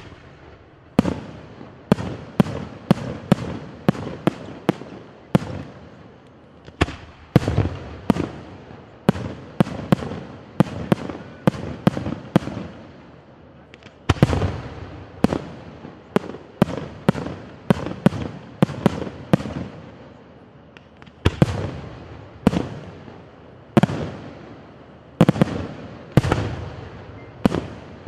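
Aerial firework shells bursting in a rapid volley: sharp bangs about one to three a second, each followed by a rolling echo, with a few brief lulls between salvos.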